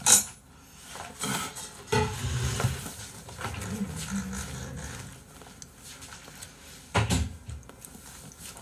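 A large padded gaming chair being shifted and rolled: a few knocks, at the start, about two seconds in and near the end, with a low rumbling scrape in between.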